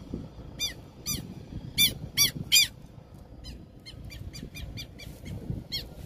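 Southern lapwing giving loud, repeated short harsh alarm calls, in quick runs with the loudest calls about two seconds in, as a nesting pair defends its eggs and chick on the ground.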